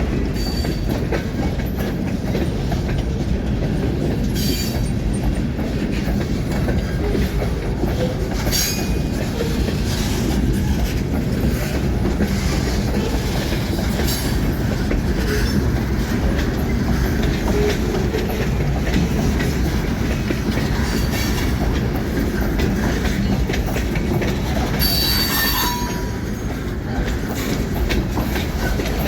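Freight train cars rolling past: a steady rumble of steel wheels on rail with clickety-clack over the joints. Brief high-pitched wheel squeals cut in a few times, the longest a few seconds before the end.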